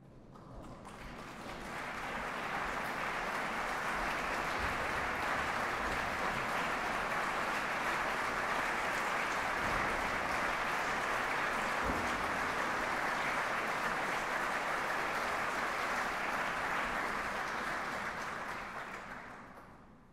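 Concert audience applauding, welcoming the performers as they walk on stage. The clapping swells over the first couple of seconds, holds steady, and dies away near the end.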